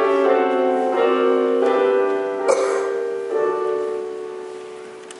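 Piano playing a slow introduction of sustained chords, changing about once a second, the last chord ringing and fading away near the end.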